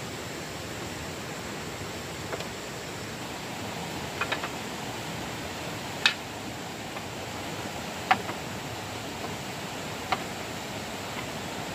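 Steady hiss with a sharp knock about every two seconds, the loudest about six seconds in.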